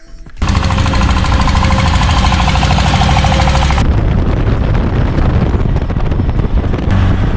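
A small engine running loud and close, with a rapid rattling pulse and wind buffeting the microphone. It cuts in suddenly about half a second in, and the rattle eases about four seconds in.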